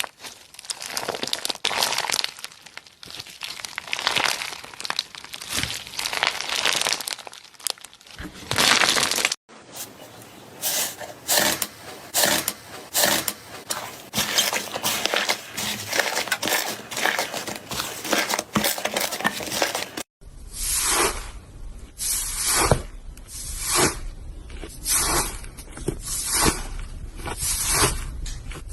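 Slime being squeezed and pressed by hand, in three short cuts. First comes a continuous crackly, crinkling squish, then a run of irregular quick squishes and pops. From about twenty seconds in there is a squelch roughly every half second as the slime is pressed and released.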